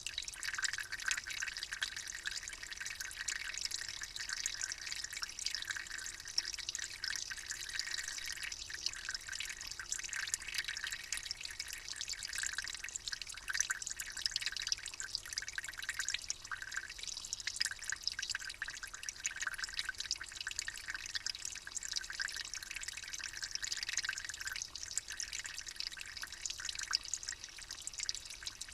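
Water trickling and dripping steadily: a dense patter of many small drips and splashes.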